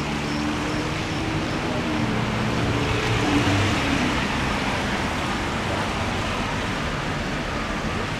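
City traffic on a rain-soaked street: tyres hissing on wet pavement, swelling as a car goes by about three seconds in, over the low steady hum of car engines.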